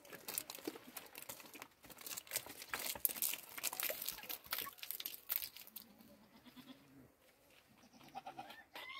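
Thin plastic bottles crinkling, crackling and knocking as they are handled, a quick run of clicks over the first six seconds before it quietens.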